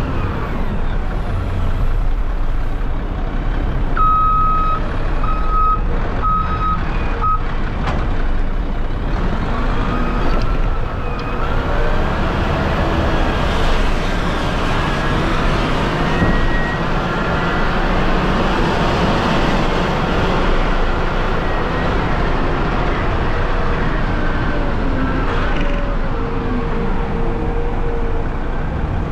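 CAT 740B haul truck's diesel engine running as the truck drives, with a whine from the engine and drivetrain rising and falling in pitch. About four seconds in, a reversing alarm beeps four times.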